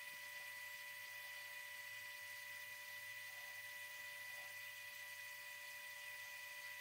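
Faint, steady electrical hum and whine with a light hiss from a running AlgoLaser DIY Kit Mini 10 W diode laser engraver working through leather. It is even throughout.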